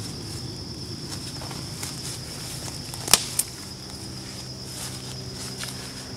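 Insects trilling steadily at a high pitch over the rustle of footsteps walking through woodland brush. Two sharp clicks a little after three seconds stand out as the loudest sounds, and a low steady hum comes in about four seconds in.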